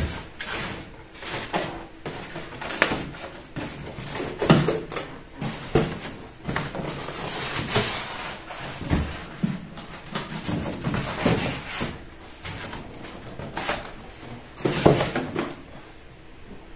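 Expanded-polystyrene packing insert being handled inside a cardboard box: irregular scraping and knocks, loudest about four and a half seconds in and again near the end.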